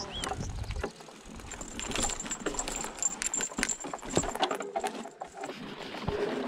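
Hardtail e-mountain bike rattling over a rocky trail: irregular knocks and clatter from the tyres, chain and frame as it rolls over stones and roots, with wind rumble on the microphone in the first second.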